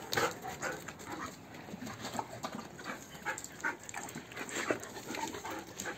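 Belgian Malinois dogs moving about on concrete, with scattered short scuffs and taps and a few brief, faint whimpers and yips.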